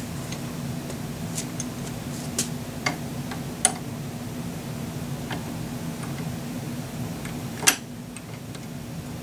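Irregular light clicks and taps of rifle parts and tools being handled during a handguard install, the loudest one near the end, over a steady low hum.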